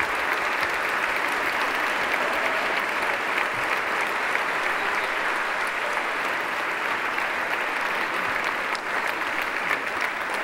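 Large theatre audience giving a standing ovation: sustained, dense applause.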